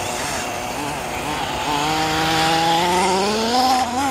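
Small engine of a radio-controlled model car running and revving up, its pitch climbing steadily from about halfway through.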